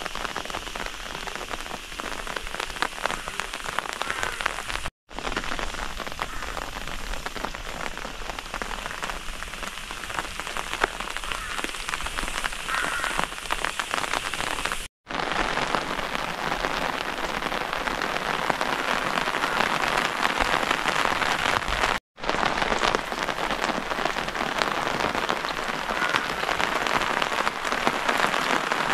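Steady rain falling, a dense patter of drops, broken three times by a split-second silent gap.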